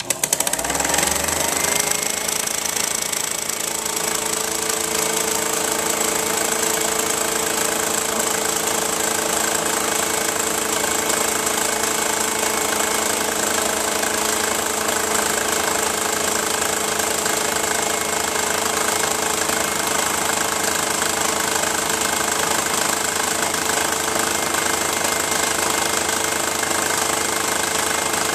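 Bell & Howell Design 122 LR 8mm film projector switching on, its motor spinning up over the first second or two, then running steadily with a fast mechanical chatter as the film is drawn through.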